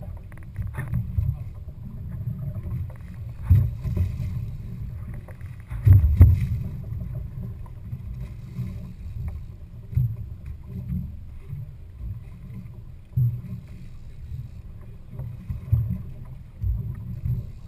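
Low rumble of wind and water around a boat at sea, with irregular thumps, the loudest about six seconds in.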